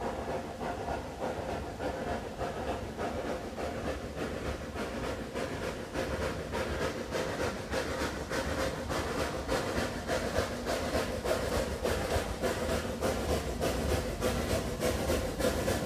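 Snowdon Mountain Railway steam rack locomotive Padarn working uphill, its exhaust beating in a quick, even rhythm with a steady hiss of steam. It grows louder as the train approaches.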